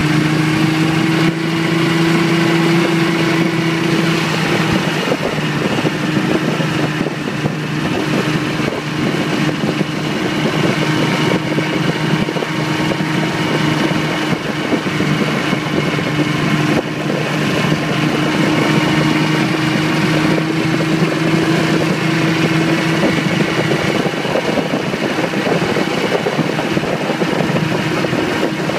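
Snowmobile engine running steadily at cruising speed, a constant hum whose pitch drifts slightly, over a rushing noise of travel.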